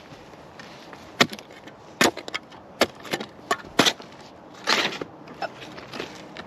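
Hand digging in rocky, clay-like soil around a stump: a digging tool strikes the ground and rocks in sharp blows about once a second, with a longer scraping sound a little past the middle.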